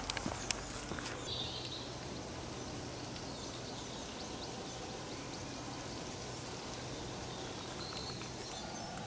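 Quiet woodland ambience: a steady low background with a couple of faint, short bird calls, and a few sharp clicks in the first half-second.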